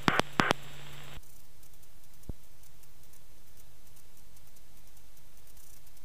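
Aircraft radio in the headset: a hiss with a low hum and a few clicks as the transmission ends, cutting off about a second in. After that a faint steady cabin and intercom noise remains, with occasional light ticks.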